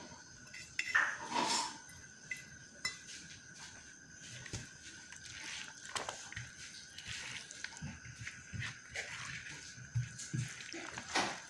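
Hand mixing and squeezing chopped onion and other moist ingredients on a plastic plate: soft wet squishing with irregular small taps and clicks of fingers against the plate, over a faint steady high whine.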